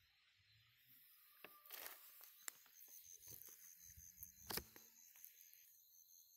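Faint rustling of a plastic sheet being handled, with a few light clicks and knocks, the strongest about four and a half seconds in. A faint, rapid, high pulsing tone runs through the middle.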